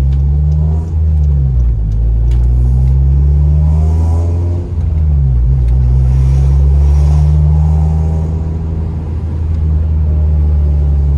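Ninth-generation Honda Civic Si's 2.4-litre K24 four-cylinder engine and exhaust running under way. Its pitch wavers, falls about four and a half seconds in, then climbs again and holds steady.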